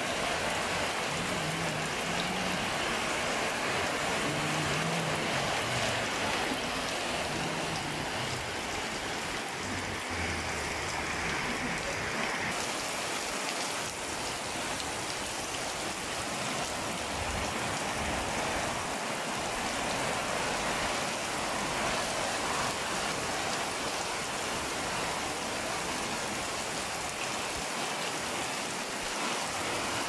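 Heavy rain falling, a steady hiss that turns brighter about twelve seconds in.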